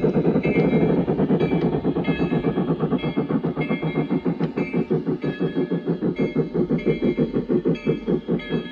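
Large-scale garden-railway model steam locomotive running past on the track, with a fast, steady beat of about eight pulses a second.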